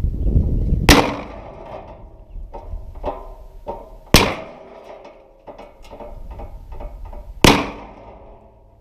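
Three sharp crossbow shots about three seconds apart, each a loud snap with a brief ring-out, with smaller clicks and knocks between them.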